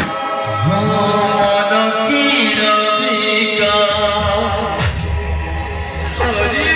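Background music: sustained instrumental tones with a melody line over a steady bass.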